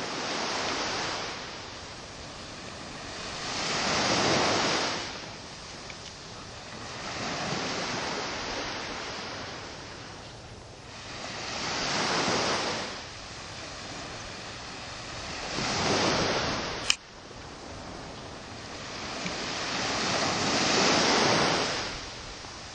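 Small waves breaking and washing up on a sandy beach, a surge of surf about every four seconds. One sharp click about three-quarters of the way through.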